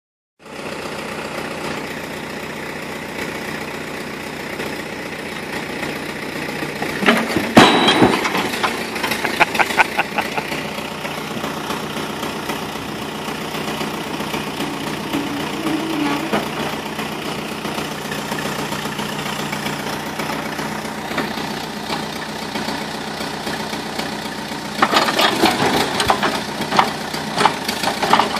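Backhoe engine running steadily as the bucket pushes a cut round off a large oak log. About seven seconds in come loud cracks and heavy knocks, a few more following for a couple of seconds, and near the end there is another short clatter of knocks.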